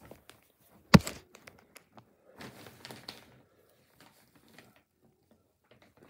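A single sharp thump about a second in, then soft rustling and scattered light clicks that die away to near quiet in the second half: footsteps and handling noise from someone moving around with a handheld camera.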